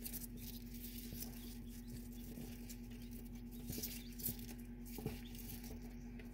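Faint light scratching and pattering of newly hatched quail chicks and a chicken chick shuffling on a sheet of paper, over a steady low hum.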